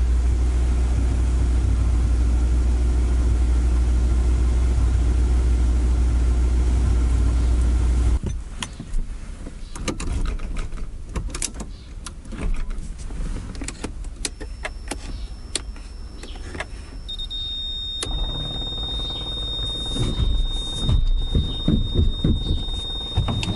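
AE86's five-valve 4A-G four-cylinder engine idling steadily for the first eight seconds or so. It stops abruptly, and then come scattered clicks and knocks in the car's cabin and a thin, high, steady electronic tone. From about 18 seconds a low, uneven engine rumble returns.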